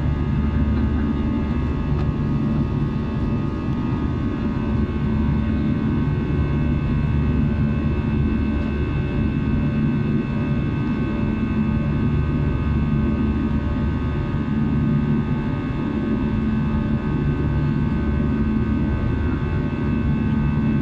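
Jet airliner's turbofan engines heard from inside the cabin while climbing after takeoff: a steady low drone with a faint hum of several steady tones above it.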